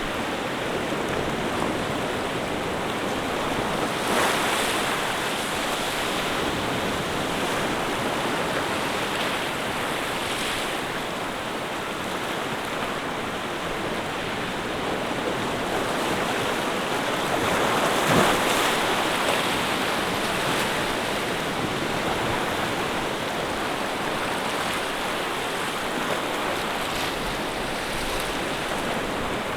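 Ocean waves washing in steadily, with a few gentle swells as bigger waves break, the strongest about eighteen seconds in.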